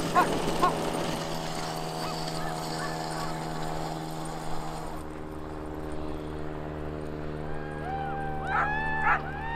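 Sled dogs giving short yips at the start and high, rising-and-falling whines and yelps near the end, over the steady hum of an idling engine.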